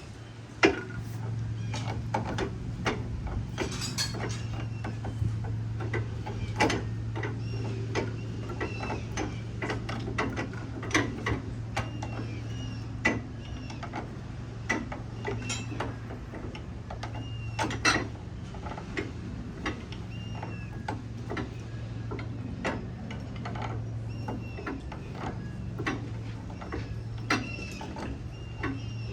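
Irregular metallic clicks, knocks and clanks of tools working on a tractor's hydraulic cylinder during disassembly for seal replacement, over a steady low hum.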